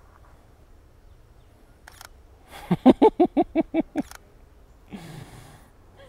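Mirrorless camera shutter firing, a sharp click about two seconds in and another about four seconds in. Between them is the loudest sound, a quick run of about eight short pitched, laugh-like notes lasting just over a second.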